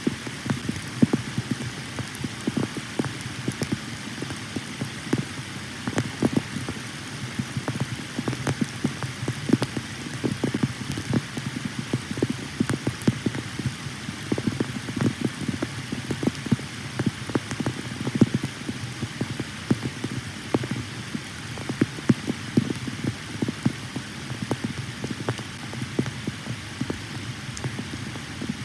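Steady rain: a dense patter of many small drop impacts over a constant hiss.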